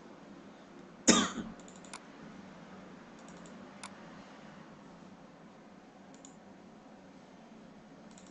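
One short cough about a second in, followed by scattered light computer-mouse clicks as folders are opened, over faint steady room hiss.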